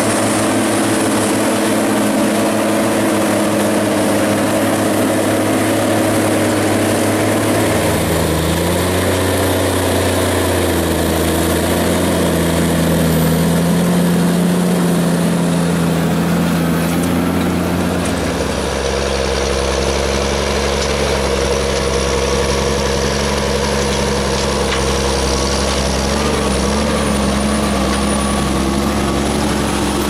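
Claas Xerion 3800 tractor's diesel engine running steadily under load while working a field. The engine note shifts about eight seconds in and changes again at a cut about eighteen seconds in.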